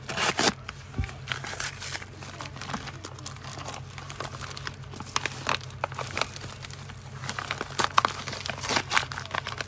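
Packaging wrap crinkling and tearing as a parcel is unwrapped by hand: irregular crackles throughout, loudest right at the start and again about eight to nine seconds in.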